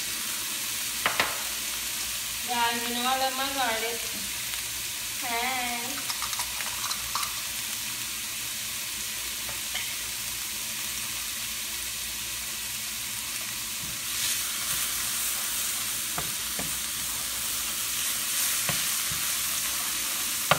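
Minced garlic sizzling in hot oil in a nonstick frying pan, a steady high hiss, with a utensil stirring and clicking against the pan now and then. Two short wavering pitched sounds come a few seconds in.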